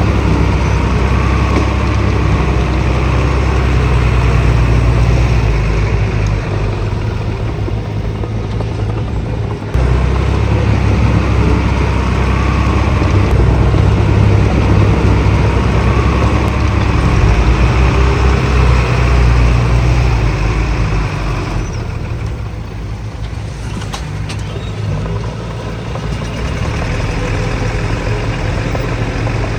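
Heavy diesel earthmoving machinery running, a deep steady engine rumble that changes abruptly about a third of the way in and eases off somewhat later.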